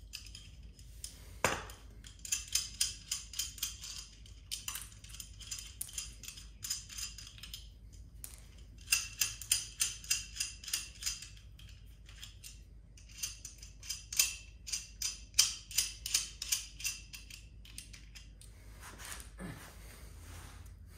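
Hand ratchet wrench clicking in quick runs of several seconds with short pauses between, as fasteners on a coilover strut are tightened.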